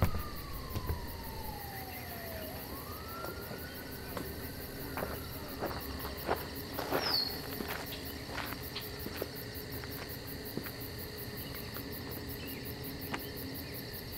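Police siren making one slow wail, falling and then rising again over the first few seconds, over steady cricket chirring. A few seconds later comes a run of short crunching steps, footsteps on gravel.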